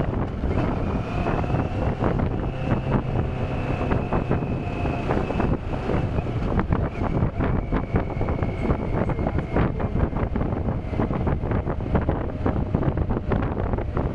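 Wind rushing over the microphone of a moving motorcycle, with the engine running underneath. It is a steady, dense rumble with no breaks.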